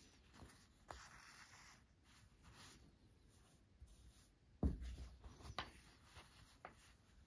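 Faint rustling of calico and thread as a needle is worked through the cloth in hand embroidery, with a soft thump about two-thirds of the way in and a few light ticks after it.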